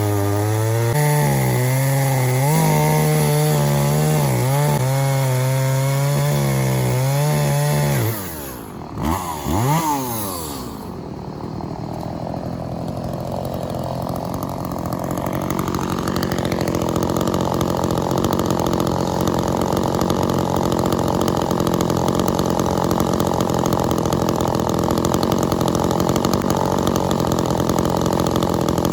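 Two-stroke chainsaw running at high revs and cutting through a red oak log. About eight seconds in, the revs drop and swing up and down, then the saw settles into a long, steady cut.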